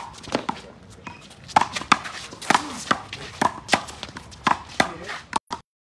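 A one-wall handball rally: a rapid run of sharp slaps as the small rubber ball is struck by hand and rebounds off the wall, two or three smacks a second. The sound cuts out abruptly near the end, a dropout in the live stream's connection.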